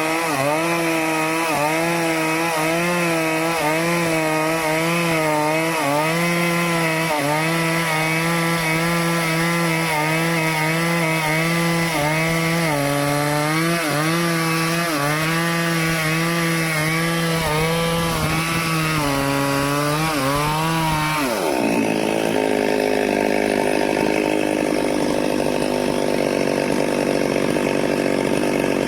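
Stihl chainsaw running at high revs while cutting teak, its pitch wavering up and down as the chain bites into the wood. About three quarters of the way through, the revs fall away sharply to a lower, steady note.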